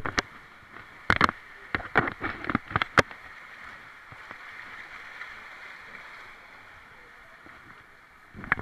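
Water rushing steadily through a water slide's start trough, with a string of sharp knocks and bumps in the first three seconds and one more near the end as the inflatable tube is handled.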